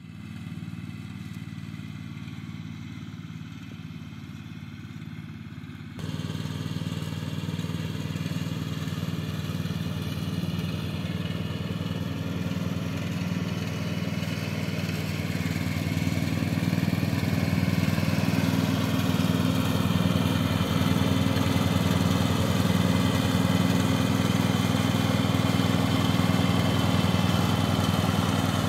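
Castelgarden JTP 92 ride-on lawn tractor's engine running steadily as the tractor drives across grass. It jumps up in level suddenly about six seconds in, then grows gradually louder.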